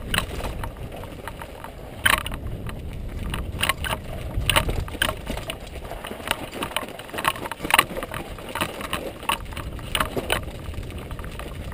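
Downhill mountain bike rattling down a rough, rooty dirt trail: a steady low rumble of tyres rolling on dirt, broken by many sharp knocks and clatters from the chain and frame as the bike hits bumps. Heard close up from a helmet-mounted camera.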